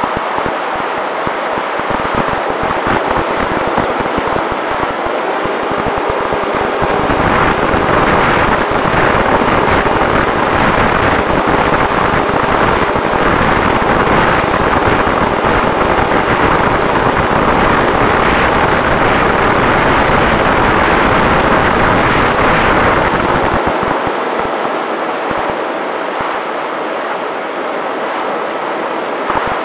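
Volantex Ranger 1600 electric RC plane in flight, heard through its onboard action camera: a steady rush of airflow over the camera with a faint even whine from the motor and propeller beneath it. The rush swells louder from about seven seconds in, then eases a few seconds before the end, with low wind buffeting on the microphone at the start and the end.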